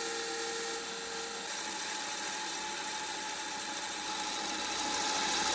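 Lathe running while a workpiece is turned: a steady machine whine over a hiss, with one tone dropping out about a second and a half in and the hiss growing louder near the end.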